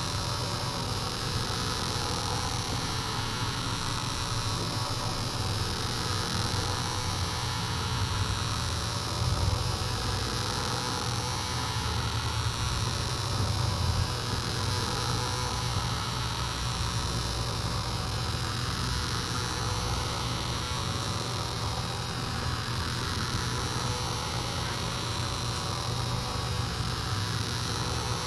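Steady electrical hum with an even hiss underneath.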